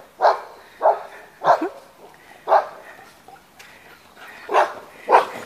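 A dog barking: six short single barks at uneven intervals.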